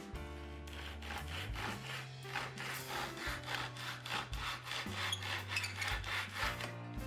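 Hand saw cutting wood in quick back-and-forth strokes, about three a second, starting about a second in and stopping near the end, over steady background music.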